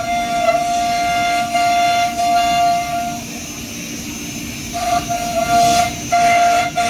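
CNC router spindles running through a wood panel: a steady, high whine over a rumbling machine noise. The whine drops away about three seconds in, returns a second and a half later, and breaks off twice briefly near the end.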